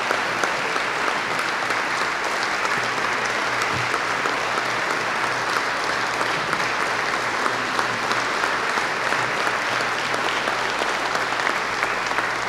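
A large roomful of legislators and guests applauding, many hands clapping steadily together.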